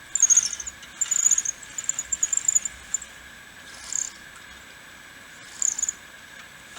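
Halyard blocks squeaking as the throat and peak halyards are hauled together to raise a gaff rig's boom: short bursts of high, thin squeaks in several spurts, with pauses between pulls.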